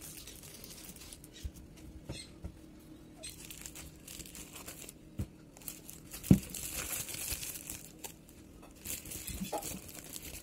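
Woven plastic sack rustling and crinkling as a hand rummages through the vegetables inside it, with a few short knocks, the loudest about six seconds in.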